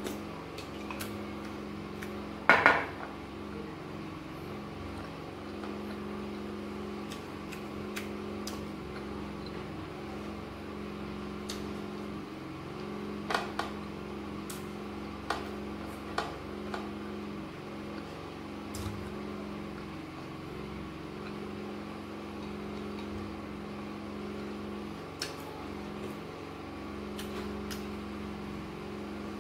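Spoon clinking and scraping against a glass bowl of soaked gari, a scatter of sharp clinks with the loudest about two and a half seconds in, over a steady low hum.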